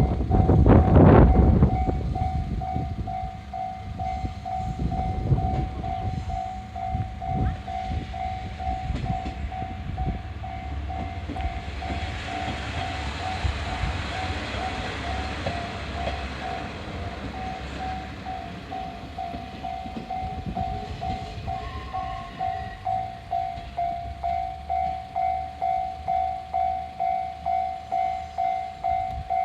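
Japanese level-crossing alarm ringing steadily in a rapid pulsing tone, about two rings a second, and stopping right at the end. A diesel train pulling a trolley car runs over the crossing: wheel knocks and engine rumble are loudest in the first two seconds, then fade as the train moves off.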